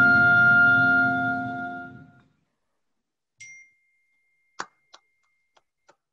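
Oboe and piano holding a final chord, which fades out about two seconds in. Near silence follows, broken by a short faint tone a little past three seconds in, a sharp click about a second later, and a few fainter clicks.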